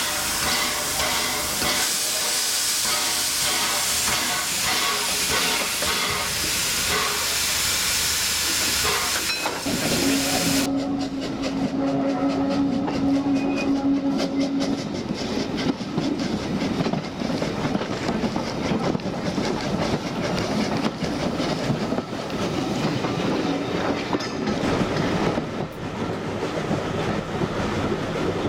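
LBSCR Stroudley Terrier 0-6-0 tank locomotive hissing steam for about ten seconds, then a sudden change to its vintage carriages running along the line, wheels clicking steadily over the rail joints, with a steady held note for about five seconds just after the change.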